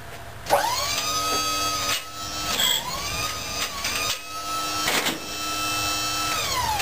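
Hydraulic pump of a sawmill claw turner whining under load: it spins up to a steady pitch while the claw works the log, sags briefly and recovers midway, then winds down near the end. A few sharp knocks of the log and turner steel come through along the way.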